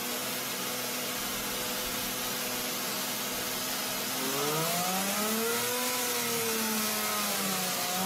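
Lamborghini Murciélago's V12 engine idling steadily, then revved slowly up and back down about halfway through.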